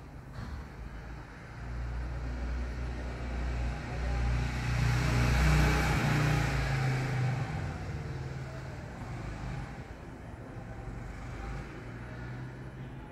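A motor vehicle passing by: engine hum and road noise swell to a peak about halfway through and then fade away.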